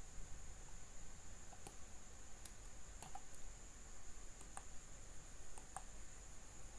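Scattered computer mouse clicks, short and sharp at irregular intervals, as mesh parts are selected in a 3D modelling program, over a faint steady high whine and low hum.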